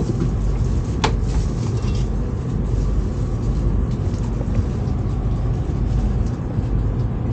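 Steady low rumble in the passenger cabin of a KTM ETS electric train, with one sharp click about a second in.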